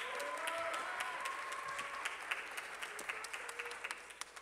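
Audience clapping, with a voice or two calling out in the first couple of seconds; the clapping thins out near the end.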